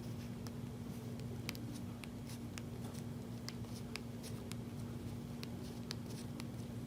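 Scattered light clicks and taps, irregularly spaced, over a steady low electrical hum.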